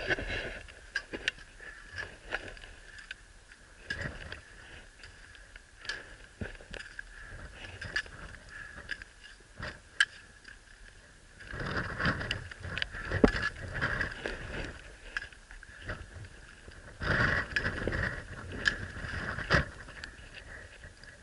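Handling noise from a climber's rope, gear and clothing close to the camera: scattered clicks, scrapes and rustles, with two longer, louder noisy stretches, one about twelve seconds in and one about seventeen seconds in.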